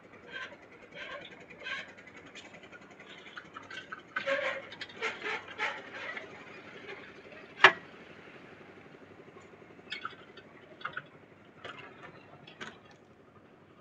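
Concrete-pouring clatter from a steel wheelbarrow being loaded from a hoist bucket and pushed over the slab: irregular clanks and scrapes, with one sharp metal bang a little before the middle and a few lighter knocks afterwards.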